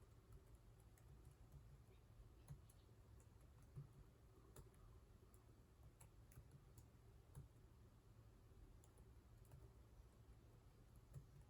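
Faint computer keyboard keystrokes, irregular light clicks coming a few at a time, over a low steady hum.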